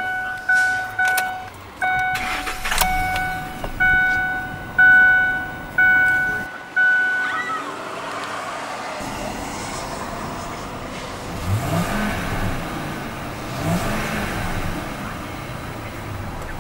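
The cab's warning chime sounds in quick repeated tones for the first seven seconds or so, with the driver's door open. Later the truck's 5.4 L V8 is revved twice, each rev rising and falling back.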